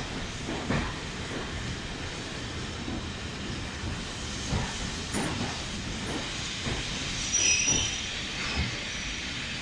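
Passenger coaches of a train rolling slowly past along a platform, their wheels thumping over the rail joints at irregular intervals. A brief high wheel squeal comes about three quarters of the way through.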